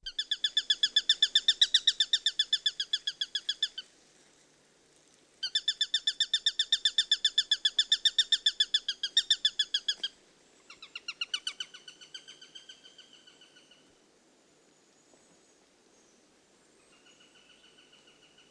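Eurasian sparrowhawk calling: long runs of rapidly repeated, high-pitched notes at an even pace, with short pauses between runs. The third run is fainter and trails off, and a faint run begins near the end.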